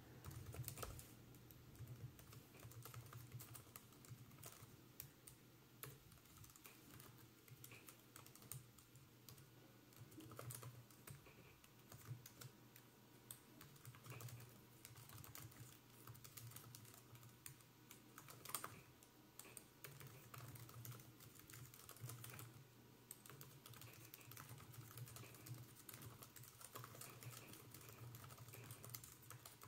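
Fast typing on the GPD Pocket 3 mini laptop's keyboard: a steady stream of faint, quick key clicks.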